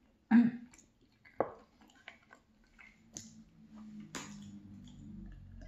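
Close-up eating sounds: a loud wet mouth noise as garlic-mayo ranch dip is licked off the fingers, then chewing of roasted potatoes with small mouth clicks. A low steady hum sets in during the second half.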